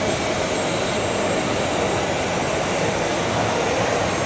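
Steady background din of a large, crowded exhibition hall: a continuous even roar with no distinct events standing out.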